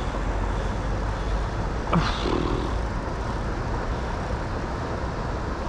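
Steady rushing noise of a flowing river, with wind rumbling against the microphone. About two seconds in there is one brief rising sound.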